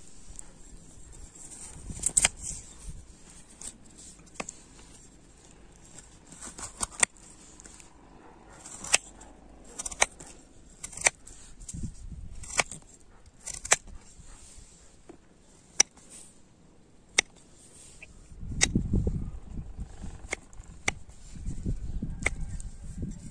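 Kitchen knife cutting peeled potatoes and then mushrooms on a wooden tree-stump block: a string of sharp knocks as the blade strikes the wood, irregularly spaced, with softer slicing between them. A low rumble rises near the end.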